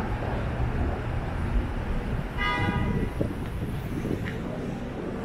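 City street traffic noise with one short car horn honk about halfway through.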